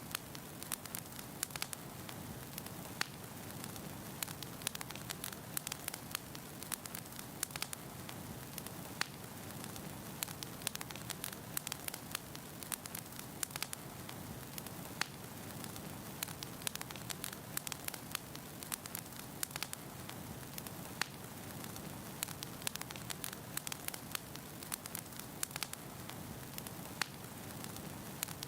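Wood fire burning in a fireplace: a steady low rush of flame with frequent sharp, irregular crackles and pops from the burning logs.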